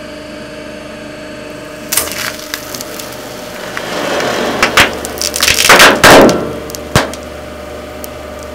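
A 300-ton hydraulic press crushing a book frozen in liquid nitrogen. Under the steady hum of the press, sharp cracks and splintering crackle set in about two seconds in and grow loudest around five to six seconds, with one more sharp crack near the end, as the frozen paper fractures.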